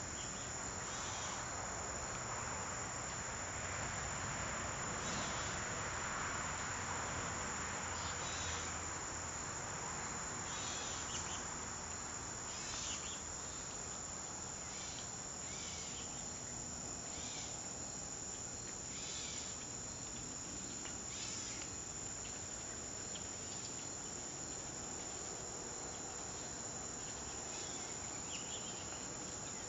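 Evening insect chorus of crickets: a steady high-pitched trill, with short louder calls pulsing in about every two seconds.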